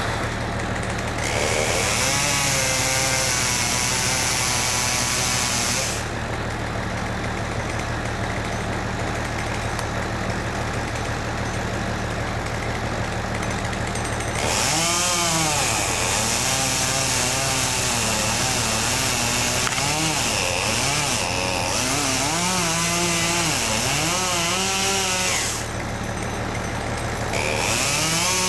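Chainsaw running in spells, revving up and down as it cuts: three bursts, the longest about ten seconds. Underneath, an engine runs steadily, most likely the crane's.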